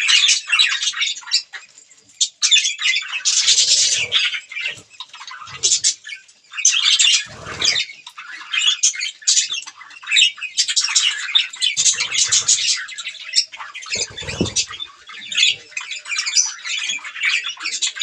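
Budgerigars chattering, a dense run of rapid high chirps and squawks coming in bouts, with a few brief low thumps among them.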